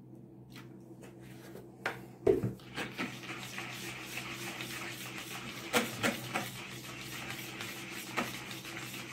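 Coil whisk stirring a runny batter of eggs, sour cream and oil in a bowl: a continuous wet swishing, with the wire clicking and knocking against the bowl's side several times.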